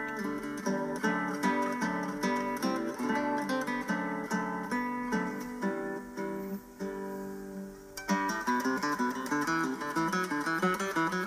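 Background music on plucked strings, notes picked steadily. It thins to a few held notes about six seconds in and picks up again about two seconds later.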